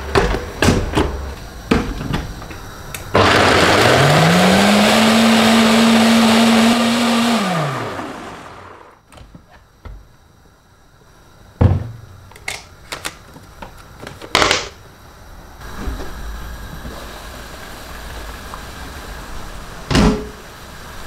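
Countertop blender grinding fried peanuts with water: the motor spins up, runs steadily for about four seconds, then winds down. A few knocks and clicks follow as the jar is handled.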